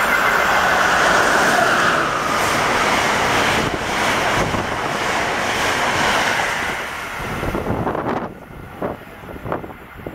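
Amtrak passenger train with stainless-steel coaches passing a station platform at high speed: a loud, steady rush of wheels on rail and displaced air that falls away about eight seconds in, followed by a few short buffets of wind on the microphone.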